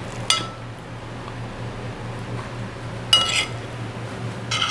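Three light clinks of an eating utensil against a dish, each with a short ring: one just after the start, one about three seconds in, and one near the end.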